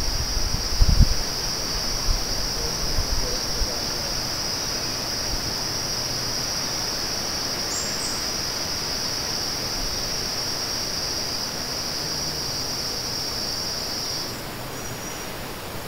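Insects in the tropical forest keep up one steady, high-pitched drone over a faint hiss; the drone cuts off suddenly near the end. A few low thumps sound in the first few seconds.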